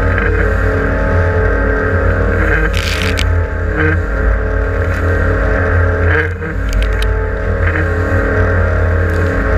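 Engine of a 6.95 m aluminium catamaran fishing boat running steadily under way at constant speed, a deep even drone. There are a few short hissing bursts about three seconds in and again around six to seven seconds.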